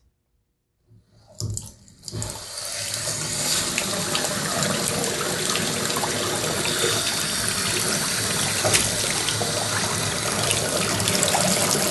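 New Moen bathroom faucet turned on about two seconds in, its unaerated full stream pouring steadily into the sink basin as the new faucet and supply lines are flushed.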